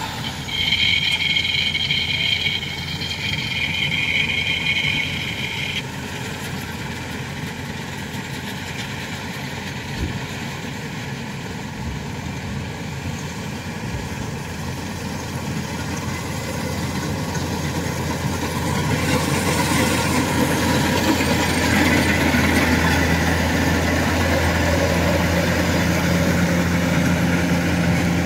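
Engines of harvest machinery running steadily: a rice tractor hauling sacks, then a Kubota DC-105X combine harvester at work, its diesel hum growing louder over the last ten seconds or so. A high two-note whine is heard for the first several seconds.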